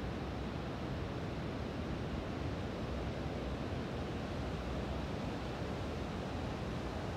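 Steady wash of surf breaking on a sandy beach, with some wind on the microphone.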